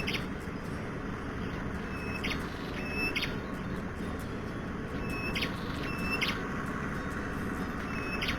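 A bird calling again and again, a short call about every one to two seconds, over a steady rushing background.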